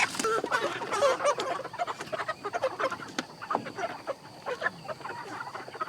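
A flock of meat chickens clucking and squawking, many short overlapping calls, busiest in the first second or so, with scattered knocks: birds being caught and put into crates.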